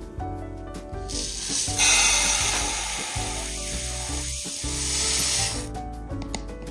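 Background music, with a steady hiss that starts about two seconds in and stops after about four seconds.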